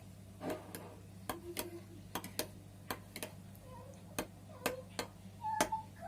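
A metal spoon clinking against a cup while stirring butter into hot milk: light, irregular clicks about two a second.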